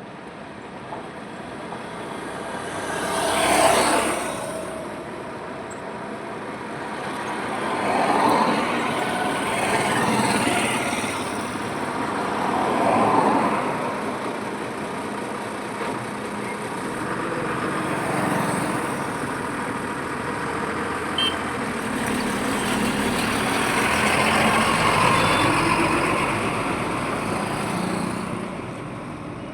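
Highway traffic: vehicles passing one after another, each swelling and fading as it goes by over a steady road noise, the loudest pass about four seconds in.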